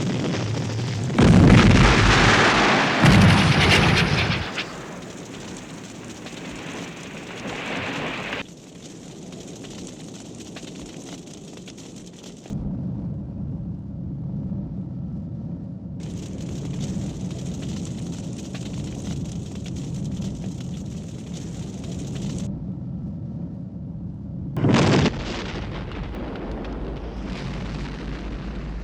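Library sound-effect explosions: two big blasts in quick succession about a second in, then a steadier rumble of lower-level noise. A further short blast comes near the end.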